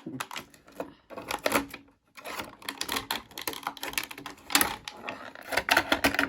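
Plastic toy packaging crackling and clicking in rapid irregular runs as a figure is worked loose from its box, with brief pauses about one and two seconds in.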